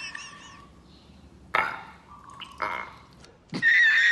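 A mostly quiet stretch with two brief sounds in the middle. About three and a half seconds in, a man's loud, high, wavering laugh starts: a laughing meme clip edited in.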